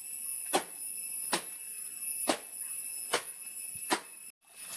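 Clothes being hand-washed by beating them against a washing stone: five sharp slaps a little under a second apart.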